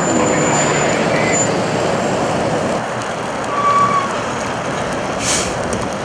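Steady noise of freeway traffic with heavy trucks passing. A brief whining tone sounds a little past the middle, and a short high hiss near the end.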